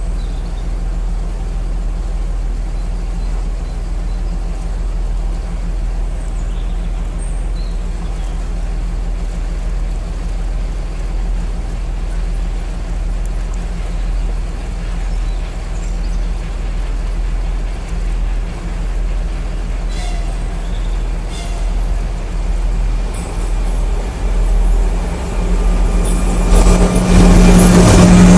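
2M62 twin-section diesel locomotive's two-stroke V12 diesel engines running steadily while hauling a freight train, growing louder near the end as the locomotive draws up and passes.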